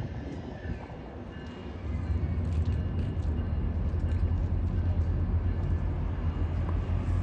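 EMD diesel engine of a passenger diesel-electric locomotive running with a deep, steady rumble that grows louder about two seconds in.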